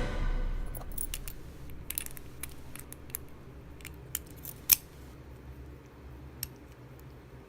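Scattered small metallic clicks and taps from padlock parts and tools being handled, the sharpest about four and a half seconds in. The tail of a music track dies away at the very start.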